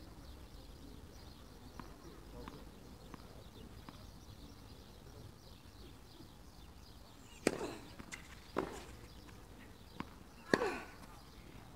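A tennis ball struck by rackets in a short rally: a few sharp pops from a little past halfway, after faint ticks of the ball being bounced in the first few seconds.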